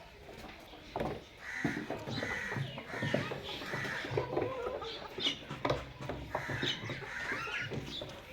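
Chickens clucking and squawking, a string of short repeated calls about two a second, with scattered clicks.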